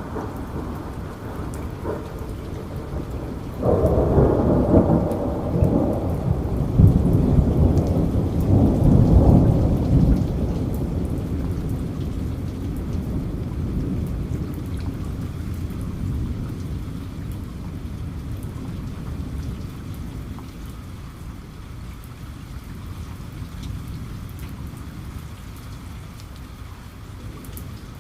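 Steady rain with a thunderclap that breaks suddenly about four seconds in, rumbles at its loudest for several seconds, then slowly dies away.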